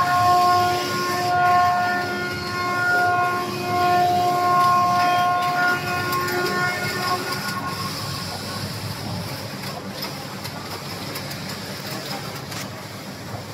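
Computerized flat knitting machine running: a steady whine at one pitch that breaks off and resumes several times over a mechanical hum. The whine fades out about seven seconds in, leaving the steady running noise.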